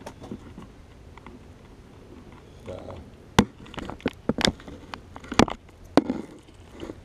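Handling noise of a camera being pushed up under a roof: about half a dozen sharp knocks and taps, starting about three seconds in.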